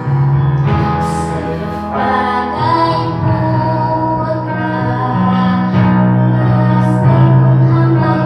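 A woman singing solo over instrumental backing music, with held bass notes under the melody.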